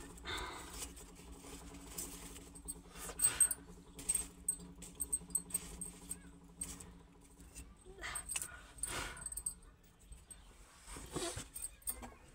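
Iron cooking tongs clinking and knocking against steel pots, a run of scattered metallic clicks with a few louder knocks.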